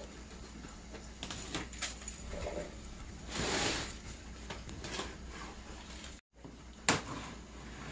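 Hands handling a cardboard monitor box and picking at its packing tape: rustling and scraping with a few light clicks. The sound drops out for an instant just past six seconds, and a sharp click follows soon after.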